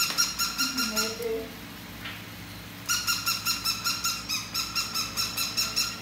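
Noise-making toy dog sounding off: a rapid string of electronic beeping pulses, about five a second, that stops about a second in and starts again about three seconds in.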